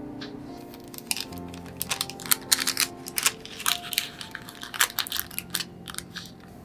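Wax paper crinkling and crackling as it is folded and pressed into a bento box as a divider, in a quick irregular run of crackles from about one second in until near the end.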